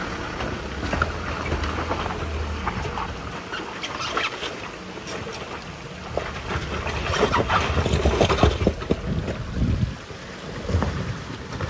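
Nissan Patrol 4x4 engine running at low speed as it crawls over a wet, rocky stream bed, with tyres crunching over loose stones, irregular knocks and splashes, and wind on the microphone. The engine's low hum is plainest in the first few seconds as it passes, and the crunching and engine sound grow louder again about two thirds of the way through as it works up the climb.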